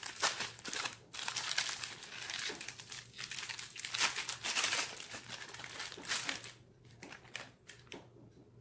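Plastic sleeve crinkling and tearing as it is pulled off a sardine tin: a rapid run of crackles for about six seconds that then thins to a few faint clicks.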